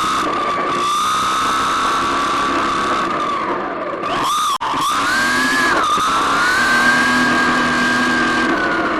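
RC car's motor and drivetrain whining at speed, the pitch rising and falling with the throttle. About four and a half seconds in the whine drops and cuts out for an instant as the car lifts off, then climbs to a higher pitch on a full-throttle straight, holds, and eases down near the end.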